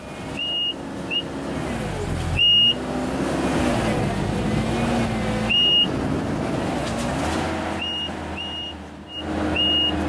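Kubota SVL90 compact track loader's diesel engine running under load while it works a tree puller, its pitch dipping and rising as the load changes, with several short high squeaks throughout.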